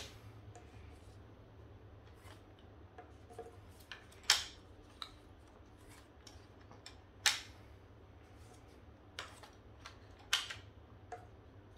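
Plastic clicks and handling rattles as foam darts are pushed one by one into the six-chamber rotating drum of a Nerf Elite 2.0 Commander RD-6 blaster. Three sharper clicks stand out a few seconds apart, with fainter ticks between them.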